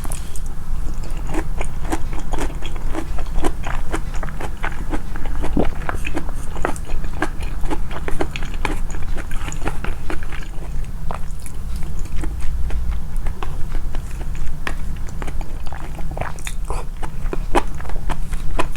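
Close-miked chewing and biting of food, amplified, with many quick moist clicks and crunches one after another over a steady low hum.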